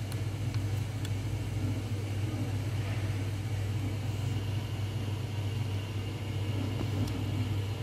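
Capsule coffee machine's pump humming steadily while it brews coffee into a mug.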